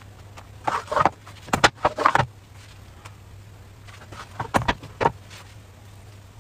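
Short knocks and clatters from handling a small electric crepe pan and lifting thin crepes off it, in clusters about a second in, around two seconds, and between four and five seconds, over a steady low hum.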